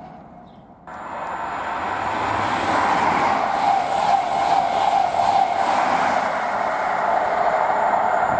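An East Midlands Railway Class 43 HST (InterCity 125) passing through the station at speed. Its rush of wheels on rail and air cuts in suddenly about a second in, then holds steady and loud, with a faint regular beat from the wheels in the middle.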